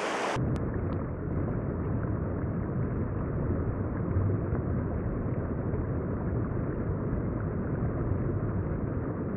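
Steady rushing of flowing river water, muffled and heavy at the low end, starting abruptly about a third of a second in.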